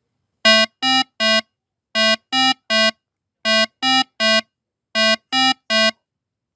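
An electronic alarm buzzer sounding four sets of three short, harsh beeps, each set about a second and a half apart.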